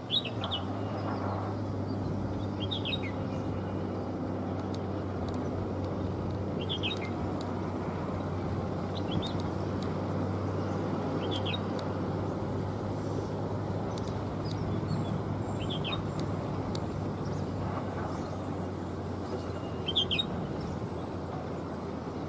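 ATR 72-600 turboprop droning steadily on its landing approach, a low, even propeller hum. Over it a bird gives a short high chirp every two to four seconds, the loudest near the start and near the end.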